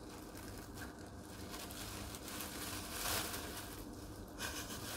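Thin plastic sheet crinkling and rustling softly as it is handled and pulled up over the head, a little louder about three seconds in.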